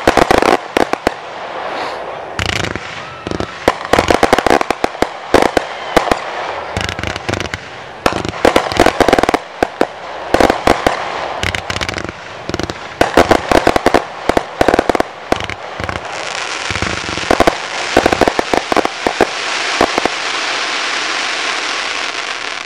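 Class C (1.4G) consumer fireworks firing in rapid, irregular succession: many sharp reports as comets launch and stars burst. From about two-thirds through, a steady hiss joins in under the reports.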